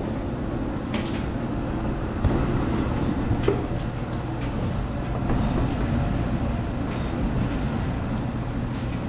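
Steady low mechanical rumble with a low hum, broken by a few light knocks.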